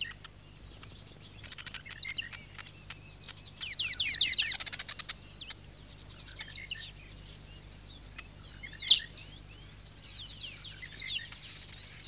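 Masked weavers chattering in bursts of rapid, falling, twittering notes mixed with clicks, with one loud sharp note about nine seconds in.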